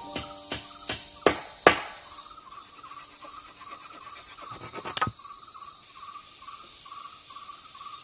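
Five sharp blows of a hand tool on wood in the first two seconds, with a short cluster of quicker knocks about five seconds in. Under them runs a steady chorus of forest insects, with a chirp repeating about twice a second.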